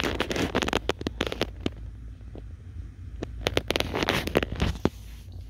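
Irregular sharp clicks and crackles in two clusters, one at the start and another about three seconds in, over a low steady hum: handling noise from the recording phone being gripped and moved.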